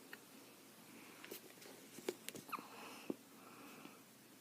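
Faint handling of a plastic bottle as thick liquid is poured into a bowl: a few soft clicks and a brief small squeak.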